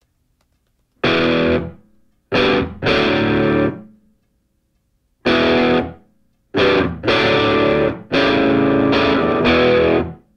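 Rock music: distorted electric guitar chords played in short stop-start blocks, each held under a second to about two seconds and broken by brief silences, the first coming in about a second in.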